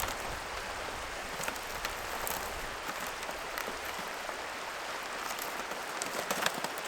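Steady rushing of a river, with scattered crinkles and clicks as the plastic wrapping is pulled off a disposable barbecue.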